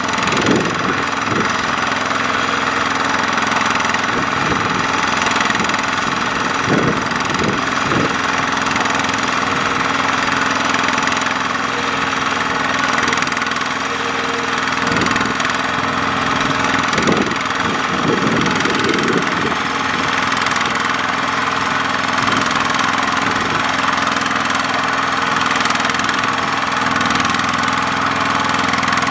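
Single-cylinder diesel engine of a two-wheel power tiller running steadily and working hard as it hauls a loaded cart of rice sacks through deep mud, with its knocking diesel beat throughout.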